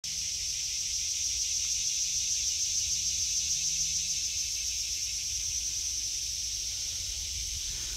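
A steady, high-pitched chorus of insects with a fine rapid pulsing, over a low rumble.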